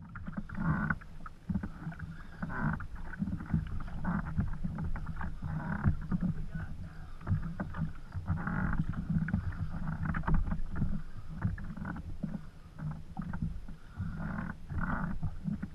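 Water slapping and sloshing against a kayak hull, with irregular knocks and rustles from handling a spinning rod and reel while a hooked fish is reeled in.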